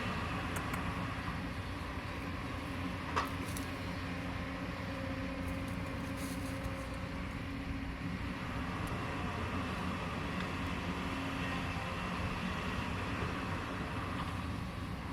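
Heavy construction machine's diesel engine running steadily, with a single sharp knock about three seconds in.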